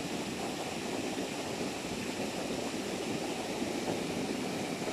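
Small waterfall on a mountain stream: water rushing steadily.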